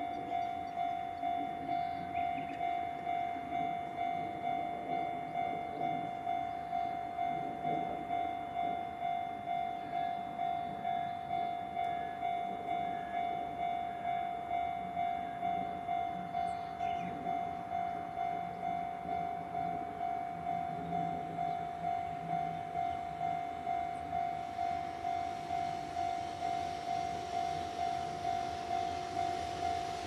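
Japanese level crossing alarm ringing: a single electronic clang repeated steadily about one and a half times a second. From about 25 seconds in, the noise of an approaching freight train hauled by an EF210 electric locomotive rises beneath it.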